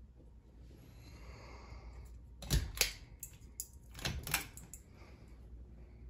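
Pull-chain switches on a 1990s Harbor Breeze Pulsar ceiling fan pulled twice, about a second and a half apart. Each pull gives a sharp click with the ball chain rattling, switching the light off and the fan on.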